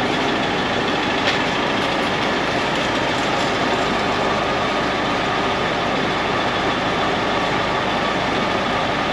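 Mister Softee ice cream van's engine idling and its soft-serve machine running, heard close at the serving hatch: a steady mechanical drone.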